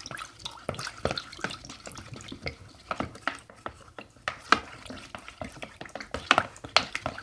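Glue and water being stirred in a bowl with a pen: a wet stirring sound with irregular clicks of the pen against the bowl.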